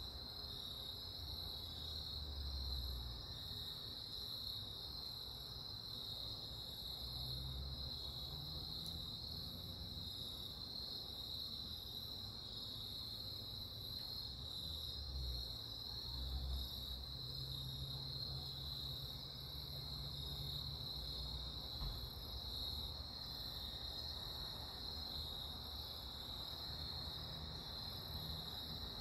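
Steady, high-pitched chorus of crickets, unbroken throughout, over a faint low rumble.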